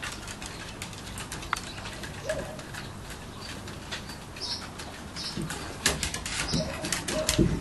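A dog making a few short, gliding whines, one about two seconds in and a cluster in the last two seconds, among scattered sharp clicks.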